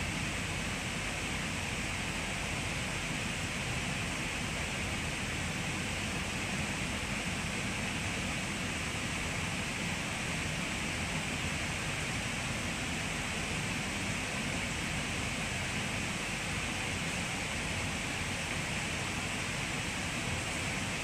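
Steady, even hiss inside an NS Intercity train carriage standing at a platform, with no change in level or pitch.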